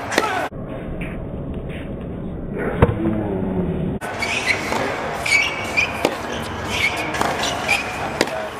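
Tennis practice on a hard court: sharp racket-on-ball hits and short squeaks of shoes on the court, with crowd chatter behind. For about three seconds near the start the sound is slowed down and muffled, holding one deep, drawn-out ball strike.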